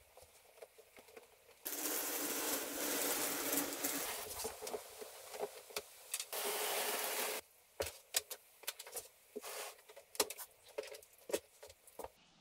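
A dog bed pad being stuffed into a plastic dog crate: a loud, even rustle of fabric against plastic for about six seconds, starting and stopping abruptly, followed by a string of light clicks and knocks as the crate is handled.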